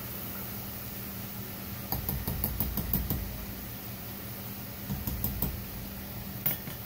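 Metal cooking utensils (tongs and a spatula) clicking and tapping against a pot of frying oil: a quick run of taps about two seconds in, three more near five seconds, and a single one near the end. Underneath is a steady hiss of hot oil frying and a low hum.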